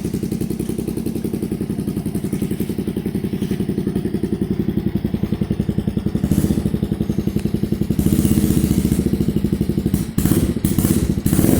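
2009 Suzuki QuadSport LT-Z90's small single-cylinder four-stroke engine running through a Big Gun Mini full exhaust, with a steady rapid putter that gets louder about eight seconds in. A few sharp clattering knocks come near the end. The owner says it needs a little carb adjustment.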